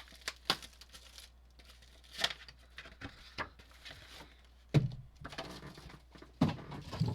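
Cardboard trading card box and its wrapping being opened by hand: irregular crinkling and tearing in short bursts, with light taps and clicks.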